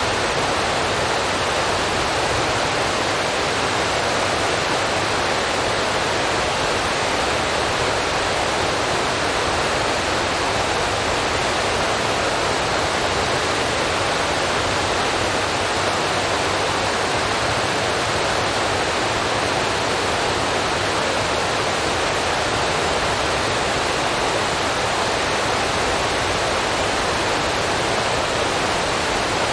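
A steady, even rushing hiss with no change in level or pitch.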